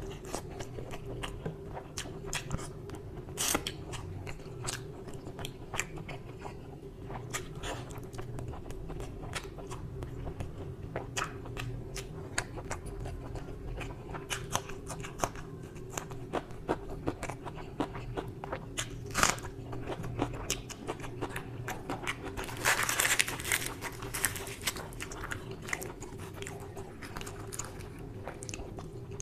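Close-miked eating of mutton curry and luchi: chewing with many sharp wet mouth clicks and smacks. About two-thirds of the way in comes a louder crackling rustle as a puffed luchi is torn apart by hand.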